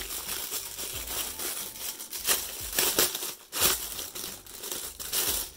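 A thin clear plastic packaging bag crinkling and rustling as it is peeled open and pulled off a pair of plastic angel wings, with several sharper crackles around the middle.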